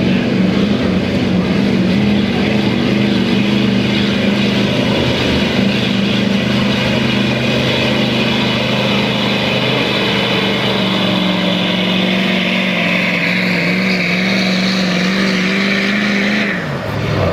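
A Ford Super Duty pickup's 6.7 L Power Stroke V8 turbodiesel running flat out under the heavy load of a pulling sled, its engine note held steady. A higher whistle builds over the last few seconds, then the engine drops off suddenly near the end as the throttle is let off.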